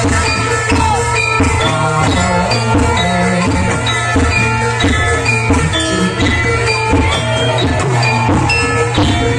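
Live Barongan accompaniment music: drums beating a steady rhythm under many short ringing notes from tuned percussion, in the manner of a gamelan ensemble.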